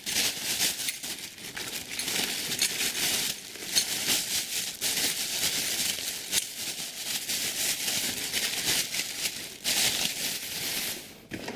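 Clear plastic bag packaging crinkling and rustling in the hands as a wrapped engine is pulled out of it, a dense crackle with a few short breaks that dies down shortly before the end.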